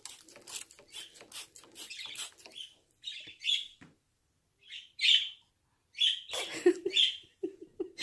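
Small pet birds, a cockatiel and budgerigars, chirping in short bursts, mixed with short hissing squirts of water being sprayed over the cockatiel for its shower.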